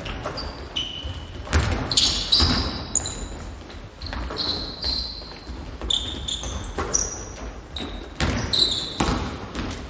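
A basketball bouncing and players' sneakers on a hardwood gym floor: irregular thuds of dribbles, catches and footfalls with short high sneaker squeaks, echoing in a large sports hall.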